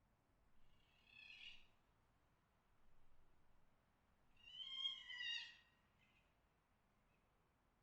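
Fox mating calls: three short, high, harsh calls, the last one, about five seconds in, the longest and loudest.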